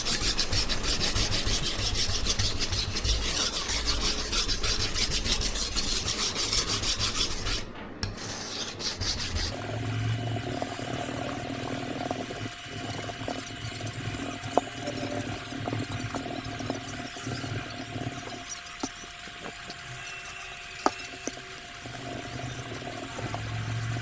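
Steel knife blade being ground on a Naniwa Chosera 400 whetstone to thin it: rapid back-and-forth scraping strokes. After about eight seconds the strokes stop briefly, then carry on much quieter with a steady hum underneath and a few sharp clicks.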